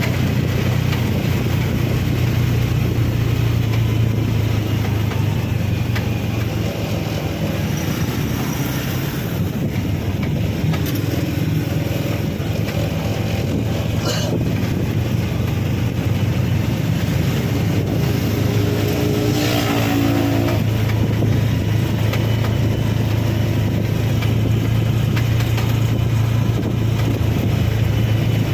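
Steady engine hum and road noise from a moving vehicle, with a couple of brief higher pitched sounds around the middle.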